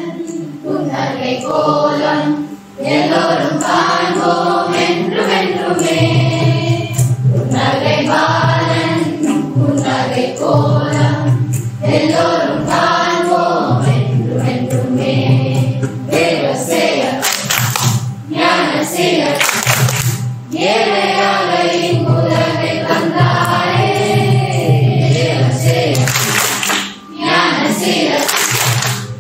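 Voices singing together in a choir, over a steady low sustained tone that drops in and out.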